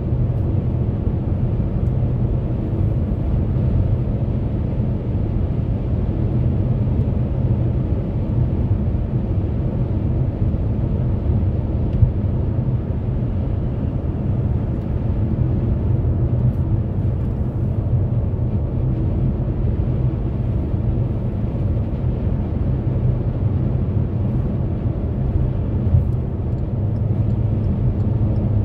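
Steady low rumble of a car moving at highway speed, heard inside the cabin: tyre and engine noise with no distinct events.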